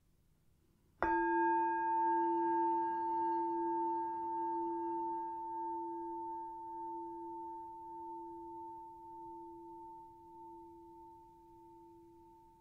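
A meditation bell of the singing-bowl kind is struck once about a second in and rings with a clear, steady tone that fades slowly. A second strike begins right at the end. The bell marks the close of the silent meditation period.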